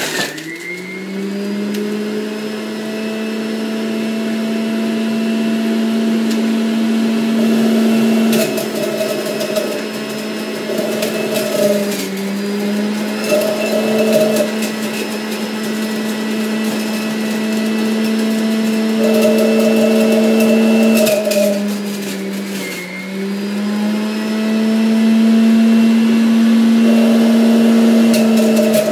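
Electric centrifugal juicer running: a steady motor whine whose pitch sags each time fruit is pushed down the feed chute onto the spinning cutter, then climbs back up. This happens about three times, with a few brief clatters from the pusher and chute.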